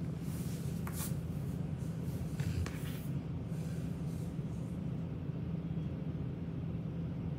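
A brush scratching through a Bernese mountain dog's thick coat, a few strokes in the first three seconds, over a steady low hum.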